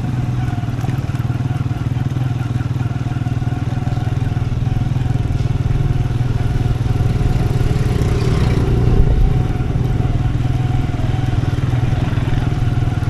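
Motorcycle engine running steadily at low road speed, heard from the rider's seat, with a brief louder swell about two-thirds of the way through.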